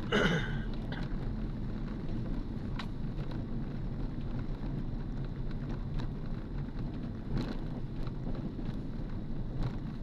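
Car cabin noise while driving: a steady low rumble of engine and tyres, with a brief louder noise right at the start and a few faint clicks.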